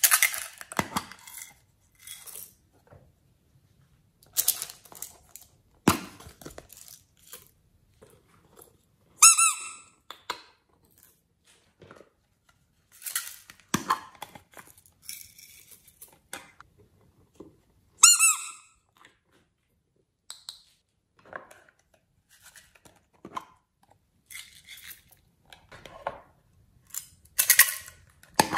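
Hands handling a small rainbow-striped plastic case with a studded hinged lid: scattered clicks and taps as the lid is opened and closed, with two short squeaks, about nine seconds in and again about eighteen seconds in.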